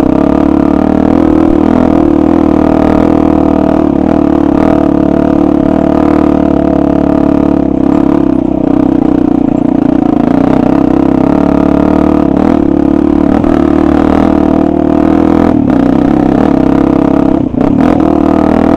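Honda XR400 dirt bike's air-cooled single-cylinder four-stroke engine, heard close up from the bike, running at a steady low throttle with its pitch wavering slightly as it picks along a rocky trail. Occasional knocks and clatter come from stones under the wheels.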